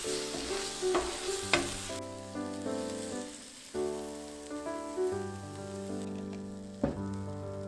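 Sauce-coated meat sizzling on a thick steel griddle plate, with a metal spatula scraping and clacking on the plate in the first two seconds. After that the sizzle goes on more quietly, with one more click near the end.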